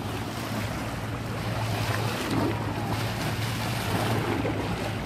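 Boat running underway: a steady engine hum, with water rushing past the hull and wind buffeting the microphone.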